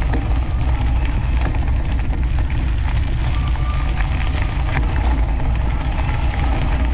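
Mountain-bike tyres rolling and crunching over loose gravel, with a steady rumble of wind buffeting the bike-mounted camera's microphone.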